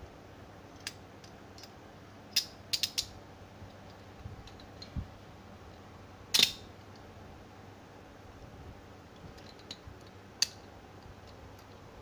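Stainless steel chain handcuffs handled and closed around a wrist: scattered metallic clicks and clinks, a quick run of three or four clicks about two and a half seconds in, and the loudest, a short rattle of clicks a little past halfway as the cuff closes. A single sharp click follows near the end.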